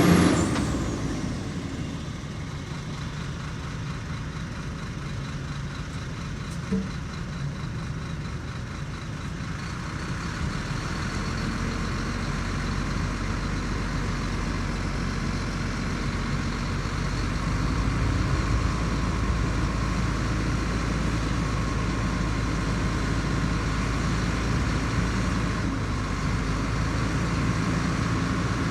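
Heavy diesel machinery engine running steadily at low revs. A louder sound cuts off right at the start, and the low engine note grows about ten seconds in and again near eighteen seconds.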